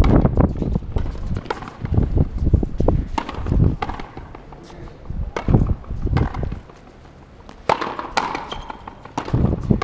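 Frontenis rally: the rubber ball cracking off rackets and smacking against the fronton wall, a string of sharp impacts about a second apart, over a low wind rumble on the microphone.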